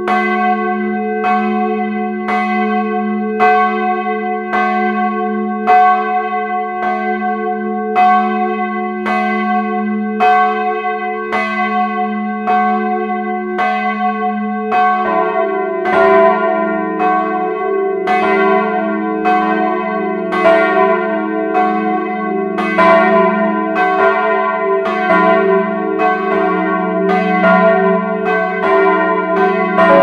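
Cast steel church bells ringing up close inside the bell tower. At first one bell swings alone, striking about once a second with a long ringing hum. A second bell joins about halfway through, and their strokes interleave into a denser peal.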